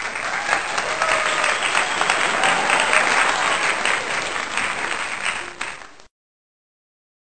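Crowd applause, a dense steady clapping that fades slightly and then stops abruptly about six seconds in, leaving dead silence.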